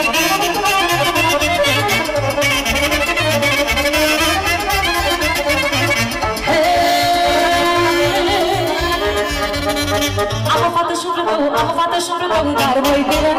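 Live Romanian folk dance music from a band: a Roland accordion and a saxophone playing the melody over a steady bass beat. The bass beat drops out for about a second near the end.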